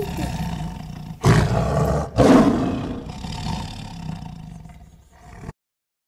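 Cheetah growling: two loud snarls about a second apart, then lower rumbling growls that fade before the sound cuts off abruptly near the end.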